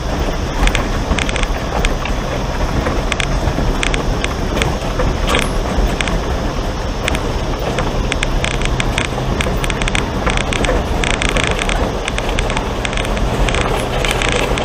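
Vehicle driving slowly along a rough gravel and dirt track: a steady engine hum with frequent clicks and knocks from the tyres on stones and the body rattling.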